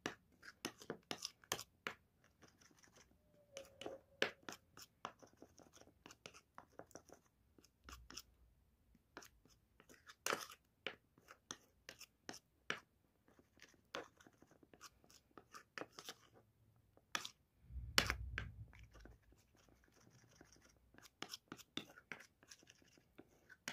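Metal spoon stirring a thick creamy paste in a ceramic bowl, clicking and scraping against the bowl's sides in quick, irregular strokes. A low thump about 18 seconds in.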